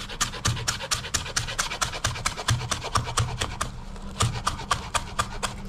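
Kitchen knife chopping fresh coriander on a plastic cutting board: quick, even strikes, about six a second.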